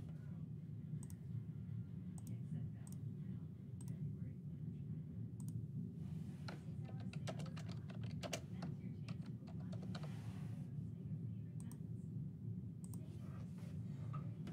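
Computer keyboard being typed on, with irregular clusters of key clicks over a steady low electrical hum.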